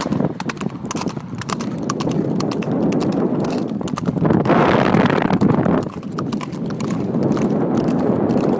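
Horse hooves clip-clopping: many sharp, irregular hoof strikes over a steady background rush.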